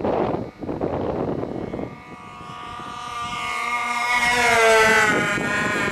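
Wind buffeting the microphone, then the twin fuel-burning engines of a radio-controlled Gangster twin model airplane growing louder as it flies past, loudest about five seconds in, their whine dropping in pitch as it goes by.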